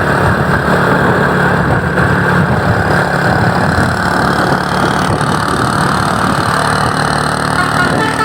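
Motor vehicle engine running steadily under continuous road noise.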